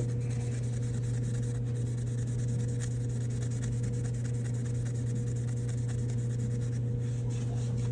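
Scotch-Brite pad scrubbing a furnace flame rod (flame sensor), faint scratchy rubbing strokes scouring buildup off the rod so it can sense the flame again. A steady low hum runs underneath and is louder than the scrubbing.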